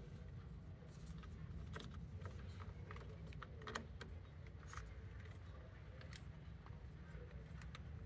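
Scattered light clicks of a plastic LED flasher relay and its connector being handled and pushed into the socket by hand, over a low steady background rumble.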